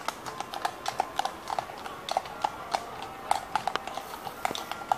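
Hooves of two walking horses clip-clopping on brick paving: an uneven run of sharp hoof strikes, several a second.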